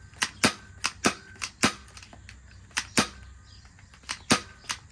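Nerf Pro Gelfire Ignitor spring-action gel blaster pistol being cocked and dry-fired with nothing loaded. Sharp plastic clicks come in quick pairs, about five pairs, with a pause in the middle.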